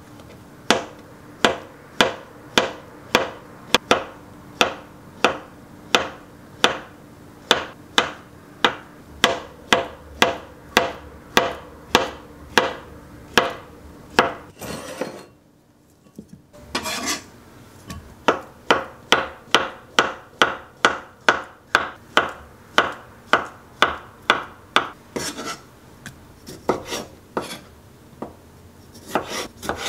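Knife slicing avocado, then cherry tomatoes, on a plastic cutting board: a steady run of knocks as the blade strikes the board, about two a second. They stop for a moment about halfway, then start again.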